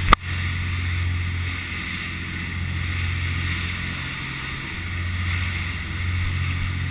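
Diesel engines of a 54-foot custom Carolina sportfishing boat running hard at speed: a steady low drone that eases slightly in the middle, under the rush of spray and wind as the hull pounds through rough seas. A sharp knock right at the start.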